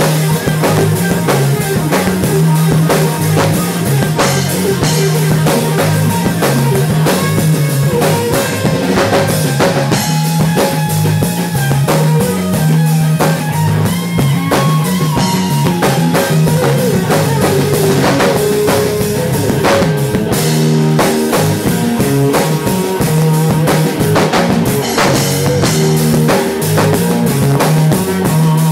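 Live blues-rock trio playing an instrumental passage: electric guitar lines over a repeating electric bass riff and a full drum kit with kick, snare and cymbals.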